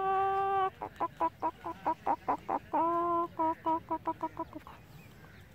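Aseel rooster calling: a long held note, then a string of short clucks about four a second, a second shorter held note about three seconds in, and a quicker run of clucks that stops about four and a half seconds in.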